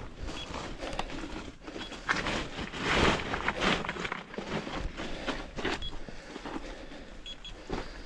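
Footsteps and brushing through ferns and undergrowth: leaves and branches rustle and swish against the walker in irregular bursts. A few short, faint high beeps come from the Geiger counter.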